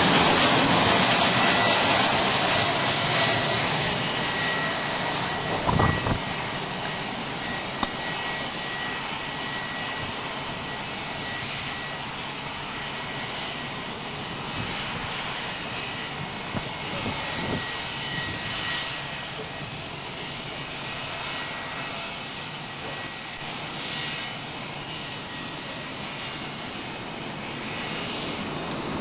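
Boeing 737-600's CFM56 jet engines whining loudly as the airliner passes close on landing approach. The sound then eases within a few seconds into a steady jet roar as the aircraft rolls out along the runway. A brief low thump comes about six seconds in.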